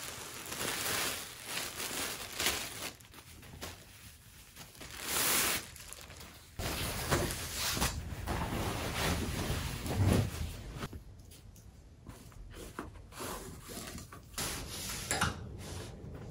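Thin plastic packaging crinkling and rustling in irregular bursts as a gown is pulled out of its bag, with cloth rustling and a few light knocks later on.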